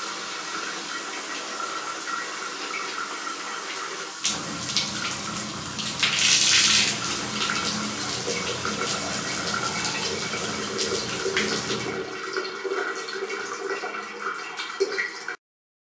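Hot water running from a bathroom tap into a plastic bottle, filling it for use as a hot-water bottle. The flow gets louder and fuller about four seconds in and dies down near the end.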